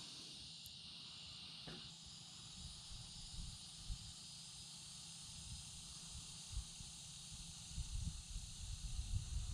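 Faint outdoor background of insects chirring steadily, with low wind rumble on the microphone that grows busier near the end and a few small handling ticks.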